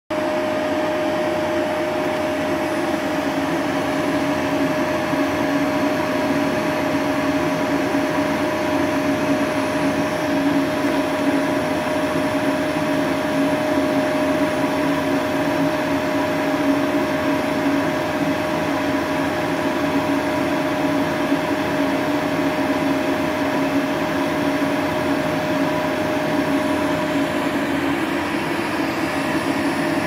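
Electrolux bagless cyclonic canister vacuum cleaner running steadily, sucking wasps in through its hose: an even rushing motor whine with one clear steady tone, unchanged throughout.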